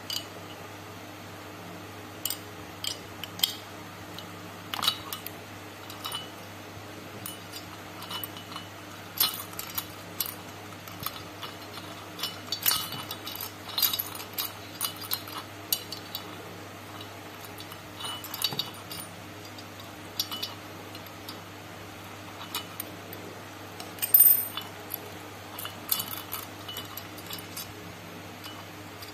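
Steel open-end wrench clinking and ticking against a nut and threaded rod as it is worked around in short strokes, tightening a puller to draw the small camshaft bearing out of a Yamaha FZ150i cylinder head. The clicks come irregularly, with one sharper clink about three quarters of the way through, over a steady low hum.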